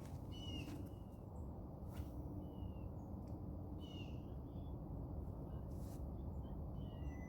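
Birds calling outdoors: short whistled notes, about four times, over a steady low background rumble, with a few faint clicks.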